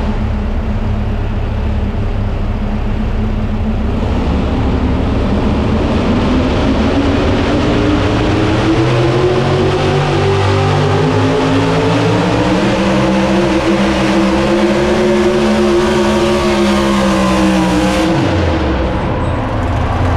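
Competition pulling vehicle's engine running at full throttle down the track, its pitch climbing steadily through the middle of the run. Near the end the pitch drops sharply as the throttle is shut off.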